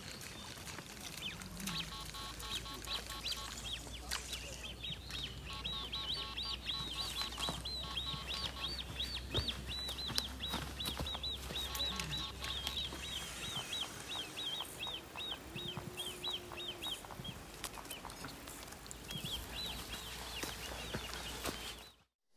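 A small bird singing: a long, fast run of repeated high chirps, with a pause and a shorter run near the end.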